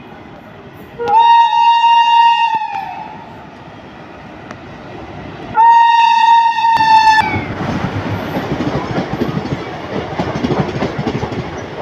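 Electric locomotive horn sounding two blasts, each about a second and a half long, the first sliding down in pitch as it dies away. Then the train runs close past with a rapid clickety-clack of wheels over the rail joints.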